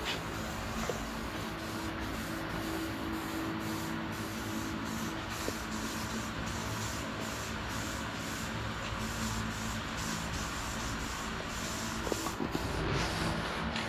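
Aerosol spray paint cans hissing in repeated bursts as blue paint is sprayed onto a bike's forks and frame, over a steady low hum. Sharper clicks join in near the end.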